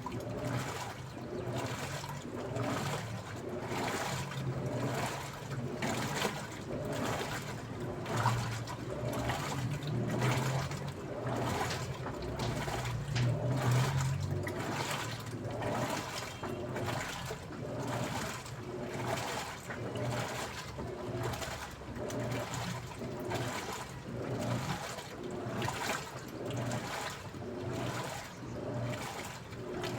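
Daewoo washing machine washing: water sloshing and swishing in a steady rhythm, about once a second, as the drum turns the load back and forth.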